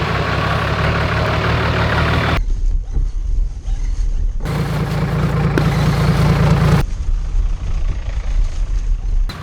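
Toyota 45 Series Landcruiser ute's engine running steadily at low revs. The sound changes abruptly several times, about every two seconds.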